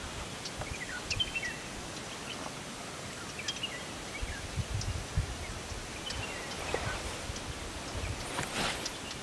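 Forest ambience with scattered short bird chirps and a few low muffled thumps in the middle. A louder rustle of leaves and branches comes a little before the end.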